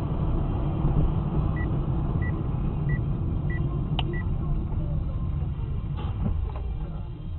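Steady low rumble of a car's engine and road noise, with a run of about six short high beeps, roughly one and a half a second. A sharp knock comes about four seconds in and fainter knocks near the end.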